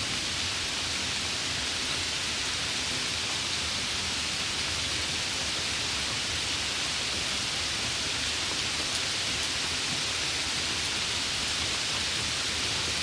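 Steady rain noise: an even, unbroken hiss of falling rain, brightest in the upper range, with a few faint drop ticks.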